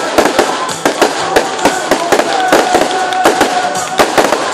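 Fireworks display going off in quick succession: sharp bangs and crackles from aerial shells and ground-launched tubes, several reports a second over a continuous crackling hiss.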